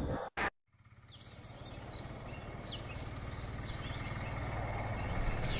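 Birds chirping and calling, many short quick chirps, fading in over a steady low hum of outdoor ambience; a brief sound is cut off right at the start, followed by a moment of dead silence.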